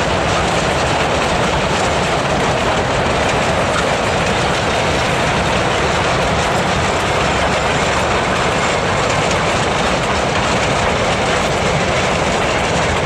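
A narrow-gauge freight train's cars rolling past on the rails, a steady, even noise with no single knock standing out.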